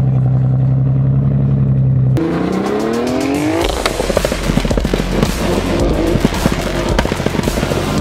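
A steady low hum, cut off about two seconds in by a car engine revving with rising pitch, followed by a dense run of sharp crackles and pops.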